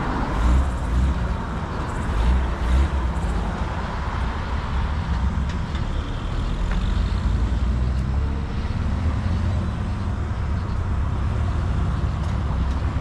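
Engine of a classic lowrider car running as it drives away down the street, with a few louder surges in the first three seconds.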